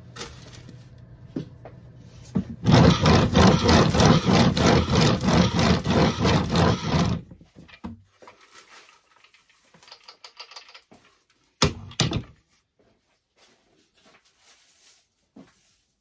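Wooden-framed quarter-inch wire-mesh sifter being shaken back and forth to sift worm castings, a fast rhythmic rattle of about four or five strokes a second lasting about four seconds. Two short knocks follow a few seconds later.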